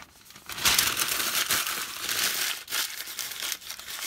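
A sheet of newspaper crumpled by hand into a ball: a dense crackling rustle that starts about half a second in, is loudest for the next two seconds, then goes on more softly.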